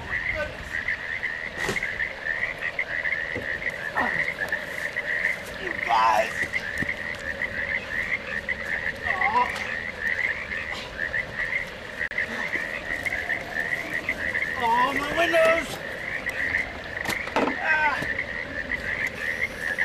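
A chorus of frogs calling steadily in a fast pulsing trill, with a few other wavering calls breaking through now and then and a few short clicks.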